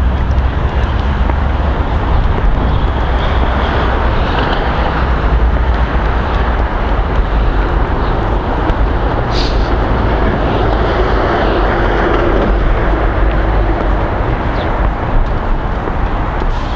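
Wind buffeting the microphone: a loud, steady low rumble with a broad rushing hiss over it.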